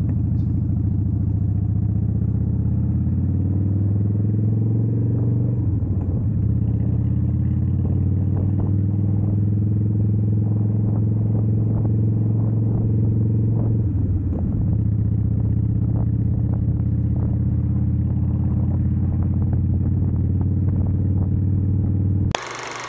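Harley-Davidson V-twin motorcycle engine running steadily under way. Its note dips and recovers twice, about 6 and 14 seconds in, as gears change.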